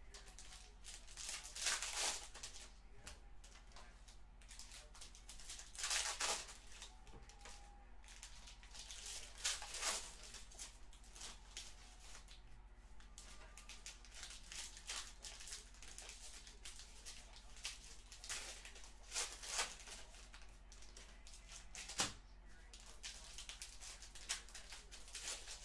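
Packaging of a trading-card hobby box being torn and crinkled, in short rustling bursts every few seconds, with one sharp tap near the end.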